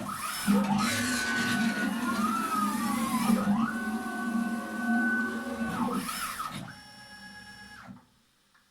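CNC machine's X and Y axis drives making rapid traverse moves: a steady whine that sweeps up and down in pitch as each move speeds up and brakes, several times over. Near the end a steadier buzz takes over, and the sound stops about eight seconds in.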